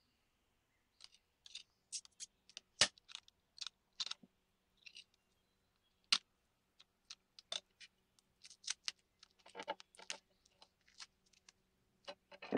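Snap-off utility knife blade cutting and scraping masking tape off a bayonet blade at its crossguard. The sound is a run of irregular sharp clicks and short scrapes.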